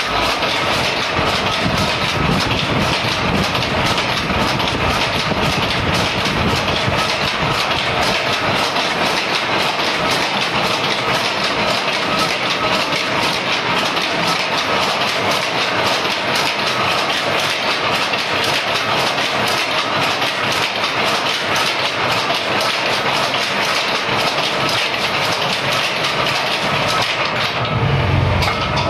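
Power loom with an electronic jacquard head weaving: a loud, steady, rapid mechanical clatter of the loom's beating and picking motion. The sound turns deeper and heavier near the end.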